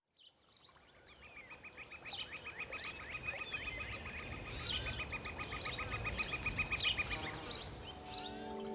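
Outdoor birdsong fading in: scattered high chirps and whistled calls over a soft background hush, with a rapid, even trill of about seven notes a second that stops a little after seven seconds in.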